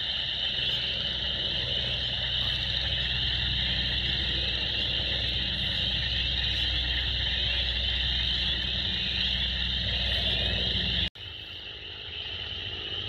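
A dense chorus of frogs chirping in flooded ground, a steady high trilling over a low steady drone. About eleven seconds in, the drone cuts off and the chorus carries on more quietly.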